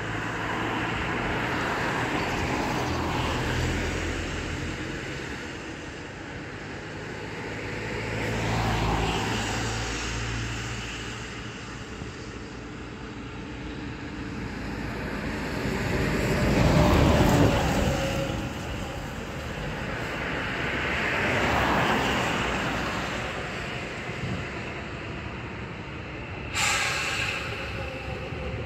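A Class 66 diesel locomotive with its two-stroke V12 EMD engine, running light and approaching. Its engine rumble swells and fades several times. Near the end a sudden, steady high-pitched tone starts and holds.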